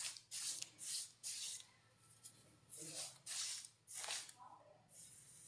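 Brush strokes applying red paint to the base of a wall: a series of short scratchy swishes, pausing about two seconds in, then resuming.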